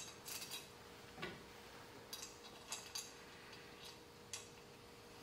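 Light, irregular metal clicks, about seven of them, as a washer and nylock nut are fitted by hand onto a threaded pin on a jet intake shoe.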